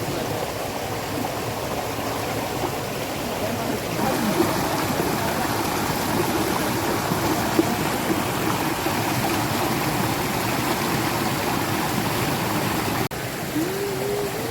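Rushing water of a waterfall stream, a steady dense wash of noise that steps louder about four seconds in and breaks off for a moment near the end.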